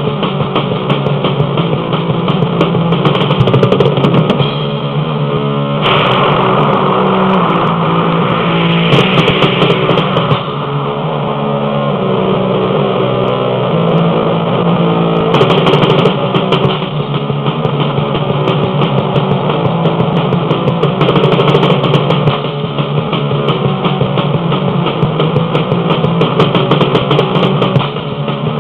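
Loud heavy rock music without vocals: distorted electric guitar with the rest of the band, an instrumental passage of the song that changes texture a few times.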